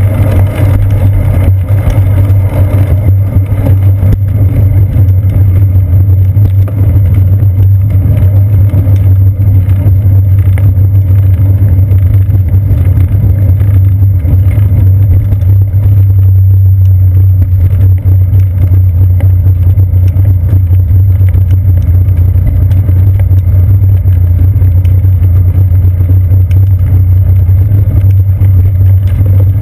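Steady loud low rumble of road vibration and wind on a bicycle's seat-post-mounted action camera while riding, with small knocks from bumps in the path.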